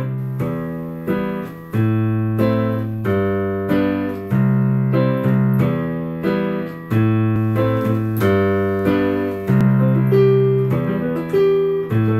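Piano recording playing back with noise removal applied by the Tape It Denoiser: single notes and chords struck about every two-thirds of a second, each fading before the next.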